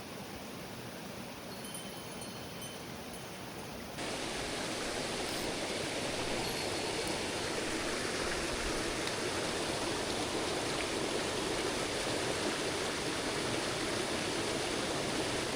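Mountain stream water rushing steadily. It gets suddenly louder about four seconds in and holds there.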